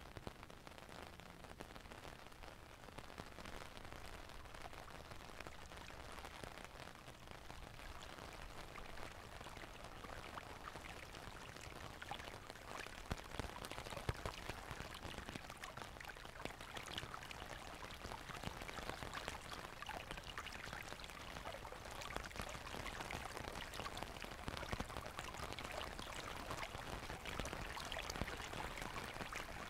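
Rain falling, with many separate drop hits over a steady hiss, slowly growing louder.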